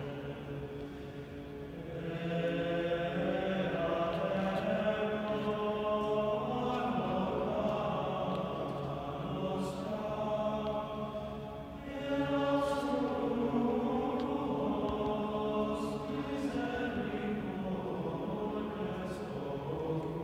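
Men's schola choir singing unaccompanied, several voices holding long sung lines. The singing dips briefly about two seconds in and again near twelve seconds, each time resuming louder.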